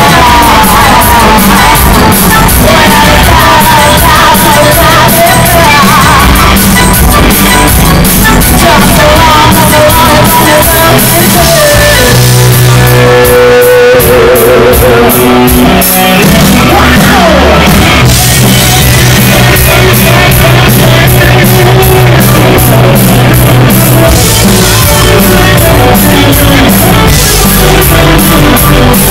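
A live rock band playing very loudly: drums, electric guitars and a singer.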